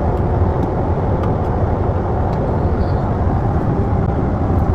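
Steady rushing drone of an airliner in flight heard inside the lavatory: engine and airflow noise with no pitch to it, a step louder than just before.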